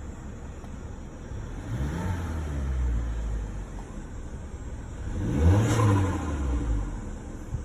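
2018 Mazda 6 Signature's turbocharged 2.5-litre four-cylinder, fitted with a Corksport short ram intake, idling and then revved twice. Each rev rises and falls back to idle, and the second goes higher and is louder.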